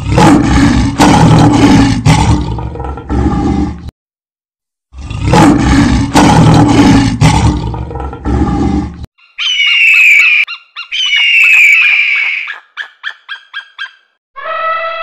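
Animal calls: two long, loud, rough roaring calls, then two high whistling calls that fall in pitch, followed by a quick run of clicks.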